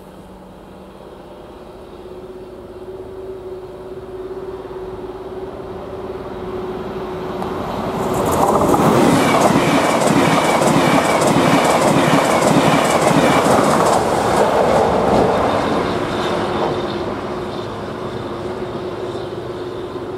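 ČD railjet passenger train approaching and passing the level crossing at speed, growing steadily louder, running loudest for about eight seconds with wheels clattering over the rails, then fading away near the end. The level crossing's classic warning bell rings steadily underneath, heard before and after the train's loudest stretch.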